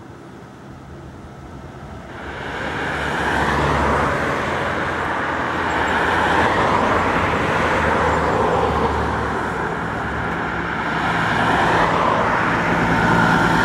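Tram passing close by. It grows loud about two seconds in and stays loud, with a rumble and a whine that rises and falls.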